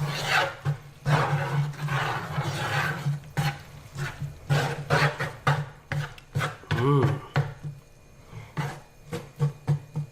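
A utensil scraping and clicking against an electric skillet as zucchini noodles in spicy sauce are stirred over the heat to cook off their water.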